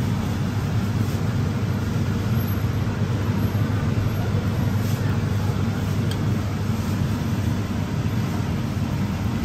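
Steady low background rumble, like machinery running, with a couple of faint clicks around the middle.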